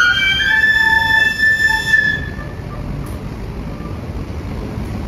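Cadet brass band holding its final chord of several sustained notes, which cuts off about two seconds in, leaving a steady low noise.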